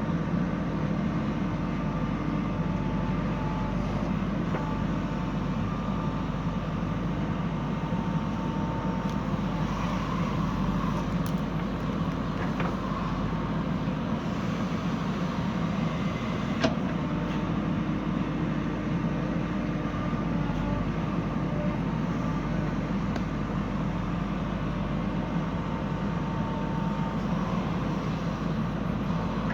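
Diesel engine of a JCB 3DX backhoe loader running steadily under work, with a whine that comes and goes. A single sharp knock sounds a little past halfway.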